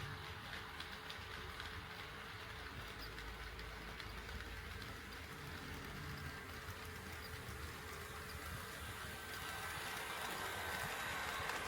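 HO-scale model train running on the track, with a steady motor whine and wheel rumble that grows louder near the end as the train comes closer.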